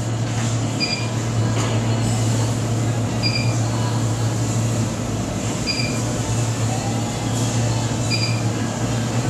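Steady low hum of an electric homebrew mash kettle's recirculation pump running while grain is mashed in. A short high chirp repeats about every two and a half seconds over it.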